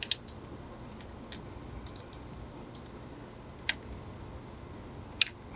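Scattered sharp metallic clicks of a wrench loosening the bolts that hold the brake vacuum pump to the back of the cylinder head. The clicks come singly or a few at a time, with pauses between, over a steady low hum.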